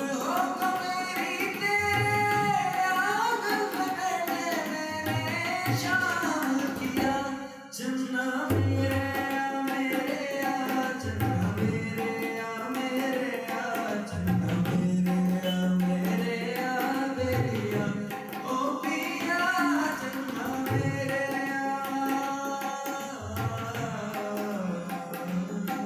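A male voice sings a Hindi film song through a microphone, accompanied by harmonium and tabla, with the tabla's deep bass drum sliding in pitch under the melody. The music briefly drops away about seven and a half seconds in, then resumes.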